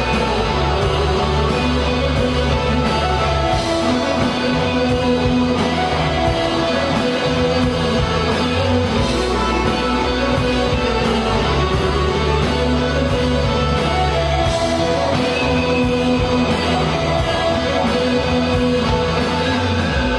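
Live rock band playing with two electric guitars over a steady drum beat and low bass notes.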